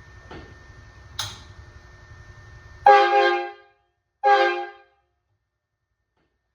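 Four-trumpet steel air horn, an electro-pneumatic train-horn kit, sounding two short blasts about a second apart. Each blast is a chord of several steady notes, the first slightly longer. A click comes just over a second in, before the blasts.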